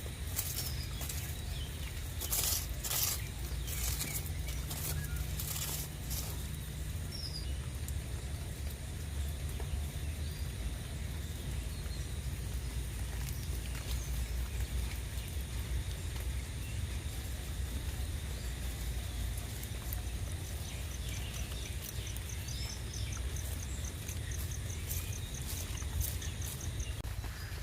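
Steady rain falling, under a low continuous rumble, with sharp drip-like ticks in the first few seconds. A bird gives a rapid, high, even trill over the last several seconds.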